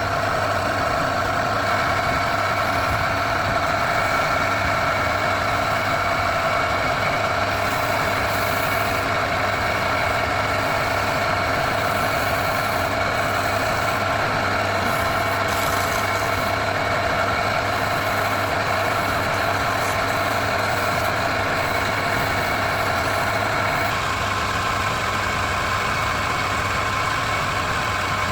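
A motor running steadily with a constant whine; its tone changes about 24 seconds in.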